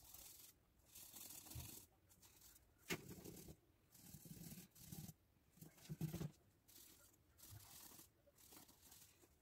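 Faint, scratchy rubbing strokes, about one a second, as a small epoxy resin ring is polished by hand against a cloth-wrapped pad, with a couple of brief knocks around three and six seconds in.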